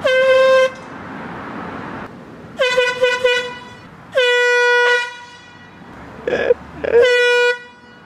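Air horn blowing one steady, piercing note in several separate blasts: a short blast at the start, a choppy run of toots about two and a half seconds in, a longer blast around four seconds in, and another short one near seven seconds.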